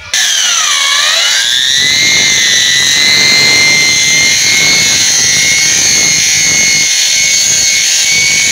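Handheld angle grinder with a sanding disc (regmal) running on marble, sanding and smoothing the stone. Its high whine starts suddenly, dips sharply in pitch about a second in and climbs back, then holds steady.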